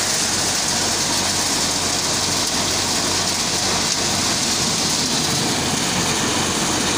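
Krushi Darshan threshing machine running steadily while threshing dry kabuli chickpea plants: a dense, continuous hiss and rattle of stalks, pods and grain through the drum over a steady low machine hum.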